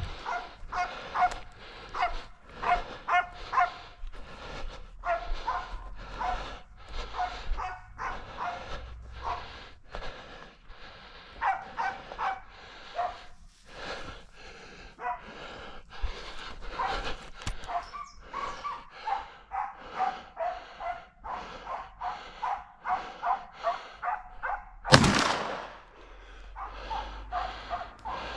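Hunting dog barking again and again, about two to three barks a second. Near the end a single loud shotgun shot cracks out, and the barking carries on after it.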